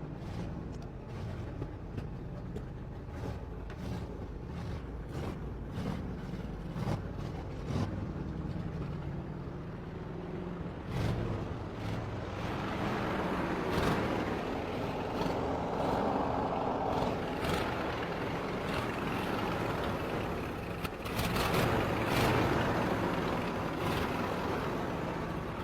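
Revived old tractor's carbureted gasoline engine running steadily, growing louder about halfway through and loudest near the end.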